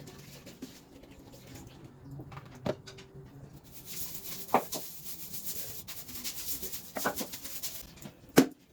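Household cleaning noises: a few sharp knocks of things being handled and set down, and a hissing that starts about four seconds in and stops just before the loudest knock near the end.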